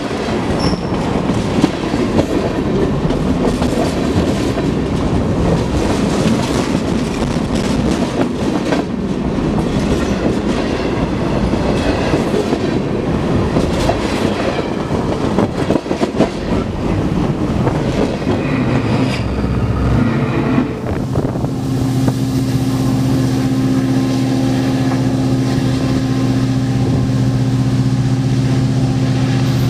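Freight cars of a manifest train rolling directly overhead: a steady rumble of steel wheels on rail, with repeated clicks as the wheels pass over the joints. After about twenty seconds the last car clears and the rumble gives way to a steady low hum.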